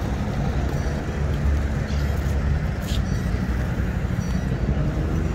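City street traffic: motor vehicle engines running close by, with a steady low engine drone under the general road noise.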